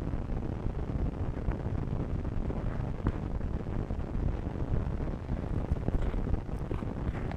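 Wind buffeting the microphone: a steady low rumble, with a few faint ticks near the end.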